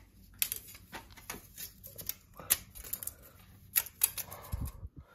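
Hand tools clicking and tapping during tiling work: irregular sharp clicks, a few a second, with a low thud about four and a half seconds in.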